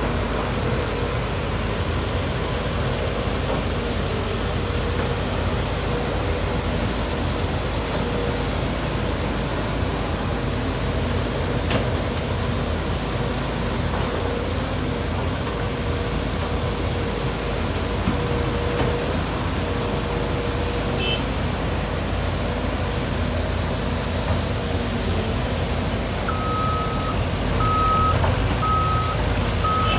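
Heavy diesel earthmoving machinery running steadily under a constant whine, typical of an excavator loading a dump truck. Near the end a reversing alarm starts beeping about once a second.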